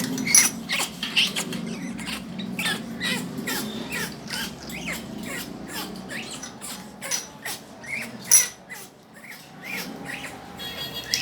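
Grey parrot making a rapid stream of short clicks, chirps and squeaks, with a brief whistled note near the end.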